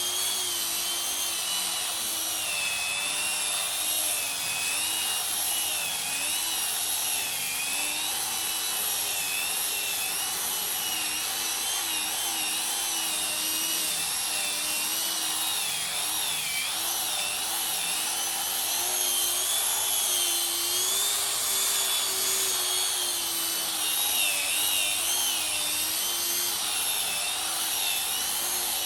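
Handheld electric power tool running continuously, its motor pitch wavering up and down as it is worked against the wood.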